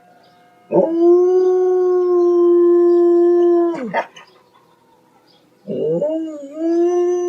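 Dog howling: two long howls, each held at a steady pitch. The first lasts about three seconds and falls away at its end. The second begins after a pause of about two seconds, wavers briefly at its start, and then holds.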